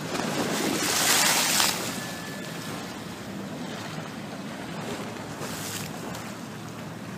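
Choppy sea waves washing and splashing against a quay wall, with wind blowing. A louder surge of splashing comes about a second in.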